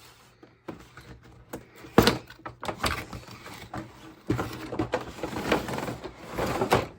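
Toy figures and their packaging being handled: scattered clicks, a sharp knock about two seconds in, then a stretch of crackly rustling and clattering.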